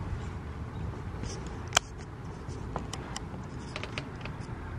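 Steady low background hum, with one sharp click a little under two seconds in and a few fainter ticks after it.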